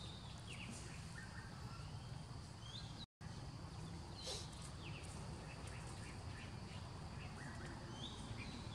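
Outdoor ambience: scattered short bird chirps and calls over a steady low rumble. The sound cuts out for a moment about three seconds in.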